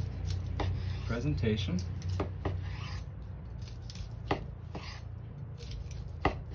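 Chef's knife slicing through a seared duck breast, the blade knocking on the bamboo cutting board at the end of each cut, several times, with the loudest knock near the end. A steady low hum runs underneath.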